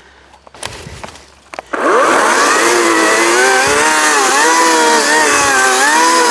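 Handling rustles and clicks, then about two seconds in a gas chainsaw starts up loud and is revved, its pitch rising and then wavering up and down with the throttle.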